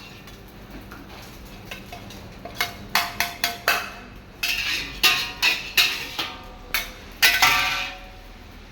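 Metal spatula striking and scraping a wok while fried rice is stir-fried: after a quieter start, a rapid series of sharp metallic clanks begins about two and a half seconds in, some ringing briefly.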